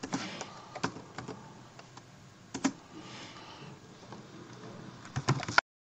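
Computer keyboard keystrokes typing a terminal command: a few scattered taps, two close together about two and a half seconds in, and a quick run of taps near the end.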